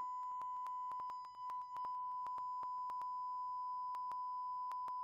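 Steady 1 kHz sine test tone played at full head-unit volume through a single 6.5-inch car-audio woofer for a sound-level measurement, with many faint clicks running through it. The tone dips briefly about a second and a half in.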